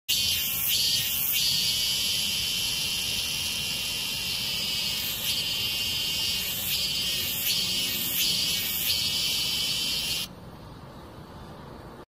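A cicada singing close up: a loud, steady, high-pitched buzz that cuts off suddenly about ten seconds in, leaving faint background hiss.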